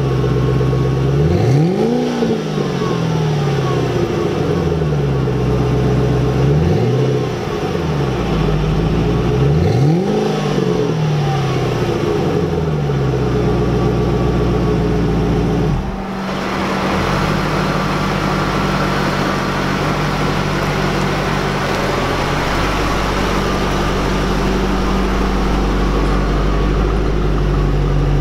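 Stock exhaust of a Ford Mustang GT's 4.6-litre V8, revved twice from idle, each rev rising and falling back. From about halfway through it idles steadily.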